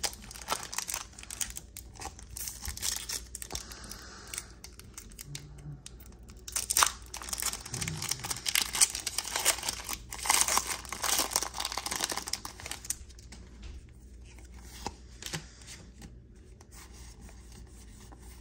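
Crinkling and tearing of a foil Pokémon booster pack wrapper being torn open and handled, along with cards being moved about. The noise is loudest in the middle and dies down to quieter handling for the last few seconds.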